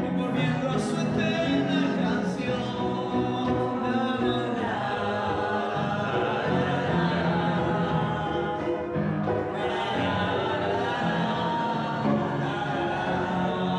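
Several voices singing together in sustained, held notes, accompanied by an upright piano played live.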